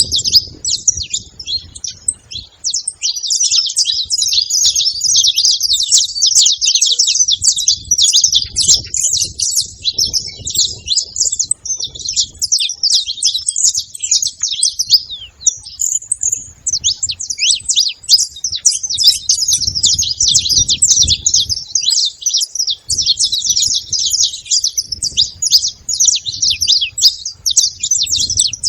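Saffron finches chirping nonstop in dense, overlapping high calls, with a brief lull about halfway through.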